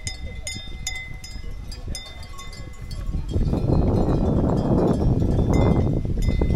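Bells on a herd of water buffalo clinking and clanking irregularly as the animals move. About three seconds in, a loud low rushing noise comes in under the bells.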